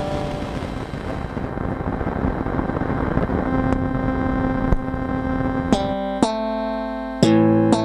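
Circuit-bent Yamaha EMT-10 sound expander playing a sustained chord smeared with a rough, noisy haze as its bend switches are flipped. About three-quarters of the way in the haze clears into a few cleaner, sharp-attacked notes.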